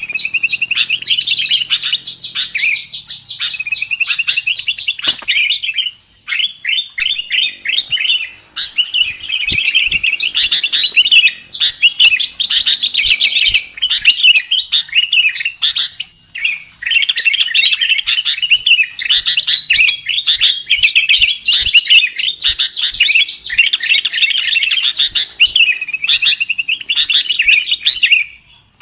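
Bird-lure recording of sooty-headed bulbuls (kutilang) and other small songbirds chirping and chattering at once, a dense nonstop chorus with a few short pauses.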